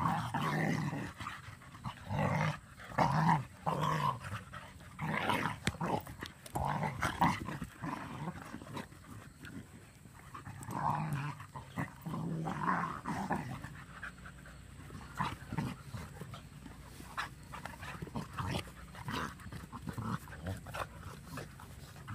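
Beagles and a boxer growling in play as they wrestle over toys, in repeated short bursts; busy for the first half, then sparser and quieter.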